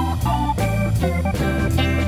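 Background music with held chords changing every half second or so over a moving bass line.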